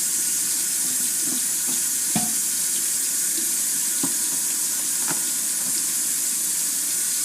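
Kitchen tap running steadily into the sink while a pan is washed with dish soap, with a few light knocks.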